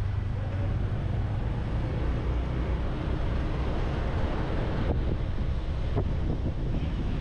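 Motorbike running at riding speed, a steady low rumble with wind buffeting the microphone. Two faint ticks come near the end.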